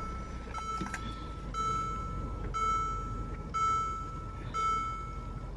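A car's dashboard warning chime sounding about once a second, five times, then stopping near the end, over a low steady hum from the car, which has just been switched back on.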